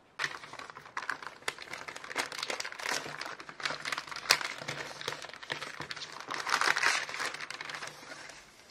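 A plastic shopping bag rustling and crinkling as hands open it and pull out sticker sheets in their plastic packaging. The crinkling starts suddenly, with one sharp crackle about four seconds in, and is loudest around six to seven seconds in.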